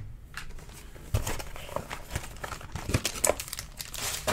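Foil trading-card pack crinkling as it is handled, among scattered light taps and rustles of cards on a table. The crinkling swells sharply at the very end as the pack is gripped to be torn open.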